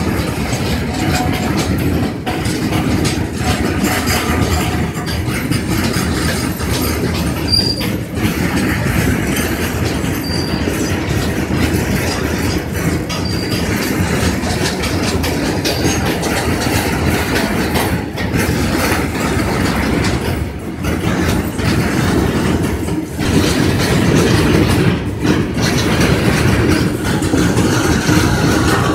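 A freight train of Indian Railways BTPN petroleum tank wagons rolling past close by: a steady rumble of steel wheels on the rails, broken by repeated clacks and knocks as the wagons' bogies go over the track. It grows a little louder near the end as a bogie passes right by.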